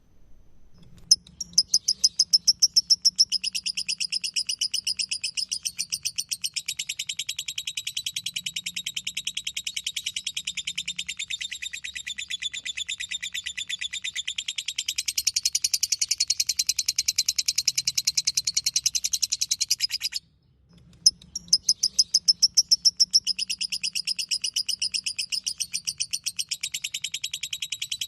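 Lovebird singing its long 'ngekek' chatter: an unbroken run of rapid, shrill notes starting about a second in, breaking off for about half a second near the twenty-second mark, then starting again.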